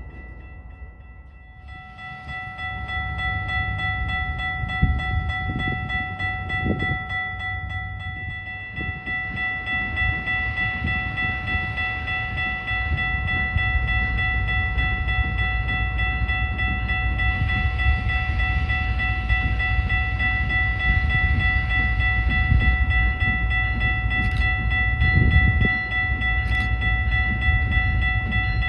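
Freight train cars rolling past on the rails with a steady low rumble, and a steady high-pitched squeal held throughout. There are a few sharp clicks near the end.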